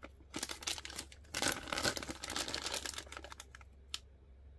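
Clear plastic bag of small toy parts crinkling as it is handled and turned over, in stretches through the middle, with a single sharp click near the end.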